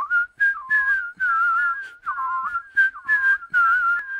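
A person whistling a bright, bouncy tune in short phrases of quick notes, each note starting with a breathy puff.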